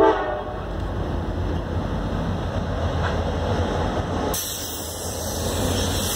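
CSX diesel locomotives running light past at close range: a steady low engine rumble with wheel-on-rail noise. The horn's blast cuts off right at the start, and a loud hiss comes in about four seconds in as the units go by.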